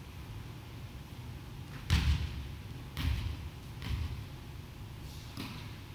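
Volleyball being struck and bouncing in a large gymnasium: a sharp smack about two seconds in, the loudest sound, then two softer thuds about a second apart, each with a short hall echo.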